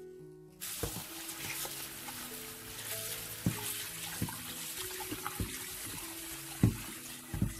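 Kitchen tap running into a stainless steel bowl as raw chicken wings are rinsed by hand, a steady splashing hiss that starts about half a second in, with a few light knocks as the wings are moved in the bowl.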